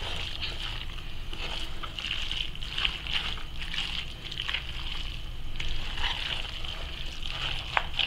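Spoon stirring a moist shredded-chicken pie filling in a metal pot: a continuous wet squelching and churning with scattered scrapes and light knocks of the spoon against the metal.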